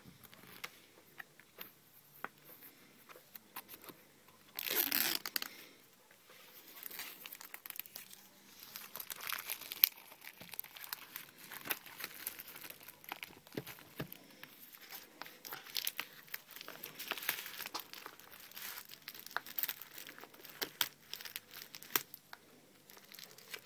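Plastic packaging crinkling and tearing as the e-reader's retail box is unwrapped by hand: irregular crackles throughout, with the loudest rustling burst about five seconds in and a sharp snap near ten seconds.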